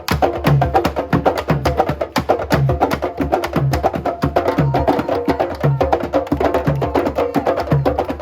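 Percussion-heavy music with a steady beat: a fast, dense run of clicking strokes over a low bass note about once a second.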